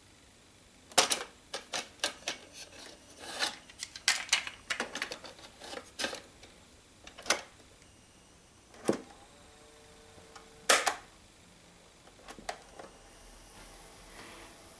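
Buttons and keys of a Sangean VersaCorder cassette recorder being pressed: a quick run of plastic clicks and clunks, a short steady beep about ten seconds in followed by a loud clunk and two more clicks. A faint high whine sets in near the end.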